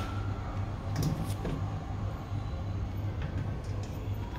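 A steady low hum with a few light clicks and taps of metal parts being handled while a metal dish rack is put together, one near the start, a cluster about a second in and a few more around three seconds in.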